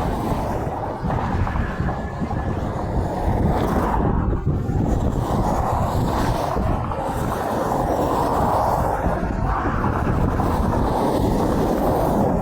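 Steady rush of interstate traffic, mixed with wind buffeting the microphone; no horn blast stands out.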